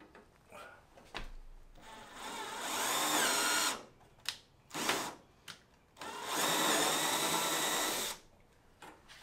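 Cordless drill boring #30 holes through the aluminium structure of a kit aircraft's horizontal stabilizer: two runs of about two seconds each, the first speeding up, with a few short bursts of the trigger between them.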